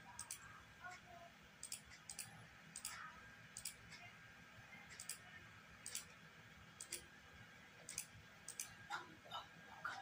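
Faint, short, sharp clicks, about a dozen at irregular intervals, as moves are made in a fast online bullet chess game.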